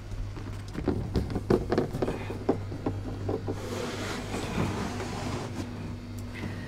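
Vinyl ceiling lining being handled and pressed up into place by hand: scattered light rustles and taps, with a denser rustle a little past halfway, over a steady low hum.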